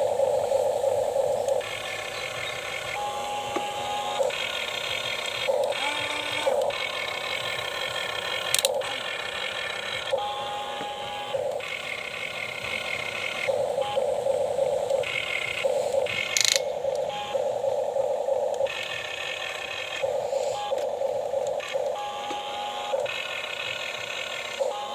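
Small electric motors and gears of a radio-controlled model excavator whining, starting and stopping in short runs of a second or two as its functions are worked, with occasional clicks.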